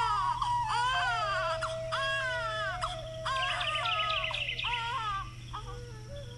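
Crying: a run of short, pitched wailing cries, each under a second, that fade away after about five seconds, over soft background music holding a steady note.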